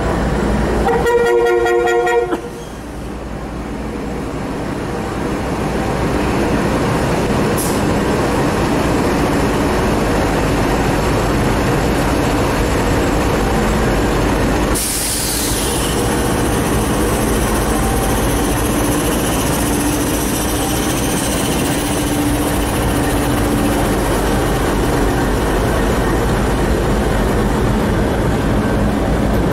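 A short diesel locomotive horn blast about a second in. Then two NR class GE diesel-electric locomotives work as they pull a grain train away past the platform, with a brief hiss midway. Loaded grain hopper wagons roll by near the end.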